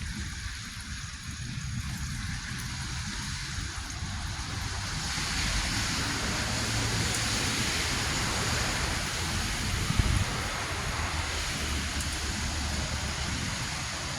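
Steady hiss of rain and wind with a low rumble underneath; the hiss grows louder about five seconds in.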